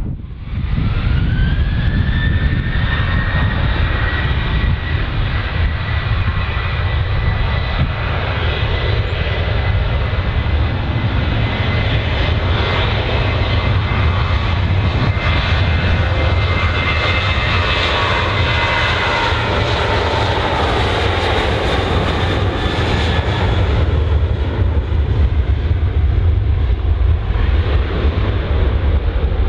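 Jet airliner's engines running loudly: a high whine that rises over the first two seconds and then holds, over a heavy low rumble. The whine fades about 24 seconds in while the rumble goes on.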